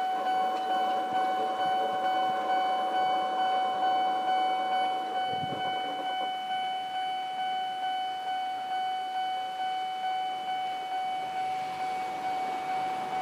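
Japanese level-crossing warning bell ringing in an even electronic clang, about two strokes a second. Under it in the first half a lower mechanical sound fades out about halfway through.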